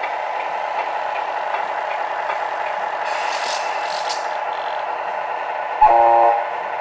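1/14 Tamiya Scania Topline radio-controlled truck driving with a steady mechanical hum. Two short hisses come about three and four seconds in, then a loud horn blast of about half a second near the end.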